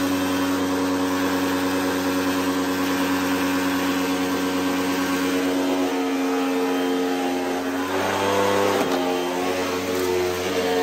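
Hoover WindTunnel upright vacuum cleaner running loud and steady on carpet, its motor pitch shifting slightly about nine seconds in.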